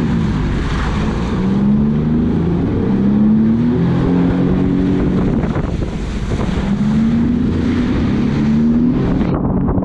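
Sea-Doo jet ski engine running at speed, its pitch rising and falling again and again, over a rush of wind and spray.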